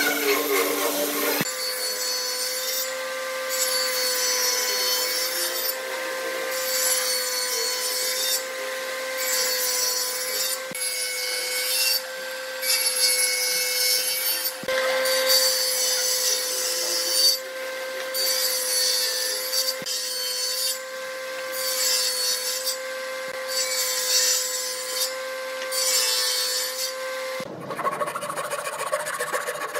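Table saw running with a steady hum while pine is fed through it again and again, each pass a burst of cutting hiss about every second and a half. Near the end it gives way to a handsaw cutting pine by hand with a rough rasping.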